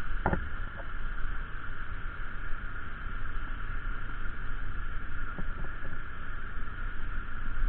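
Wind rushing over the microphone of a moving motorcycle, over the steady low rumble of the bike's engine and tyres. There is a brief knock near the start.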